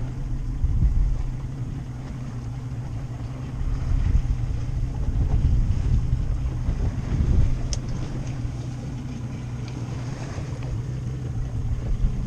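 Boat's outboard motor running with a steady low hum, with wind buffeting the microphone in gusts.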